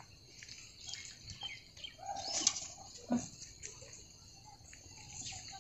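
Birds chirping, with short handling noises from a wet cast net being hauled up onto a muddy bank.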